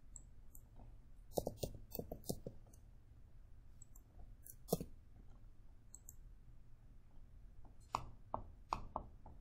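Computer keyboard and mouse clicks: a quick run of keystrokes about a second and a half in, a single sharper click near the middle, and another run of clicks near the end.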